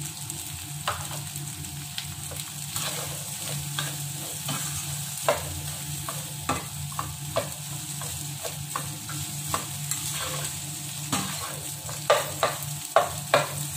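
Chopped okra frying in oil, sizzling steadily while a spatula stirs it through the pan. Scattered clicks and scrapes of the spatula against the pan run throughout, and several come close together near the end.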